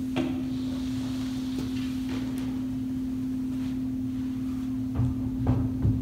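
A steady hum held on one pitch, with a few soft knocks and thumps near the end.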